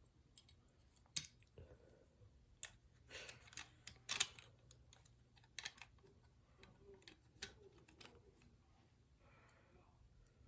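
Small plastic toy parts being handled and fitted together: scattered sharp clicks and short scrapes, the loudest about a second in and around four seconds in, with fainter clicks after.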